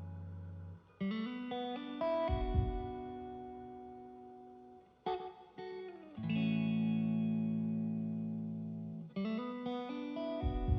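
Background music: guitar chords plucked and left to ring, a new chord coming in every second or few.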